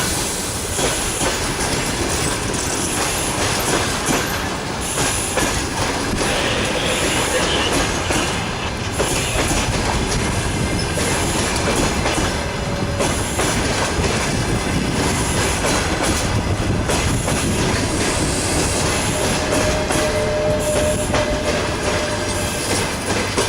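Passenger coaches of a departing train rolling past, their wheels clattering steadily over the rail joints. Faint wheel squeals come in briefly about 13 s in and again near the end.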